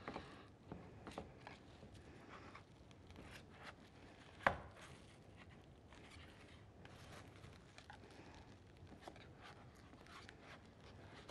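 Knife easing a parfait out of its container: faint scraping and scattered light taps of the blade, with one sharp knock about four and a half seconds in.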